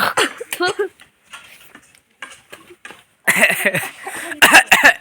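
Talking myna calling: a warbling run of squawks and whistles in the first second, then a louder, harsher burst of calls and clicks from about three seconds in.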